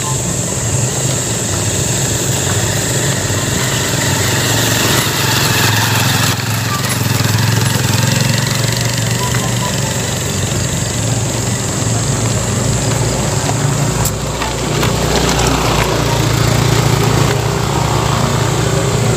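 Motorcycle engine running steadily under way, with wind noise on the microphone and a steady high hiss.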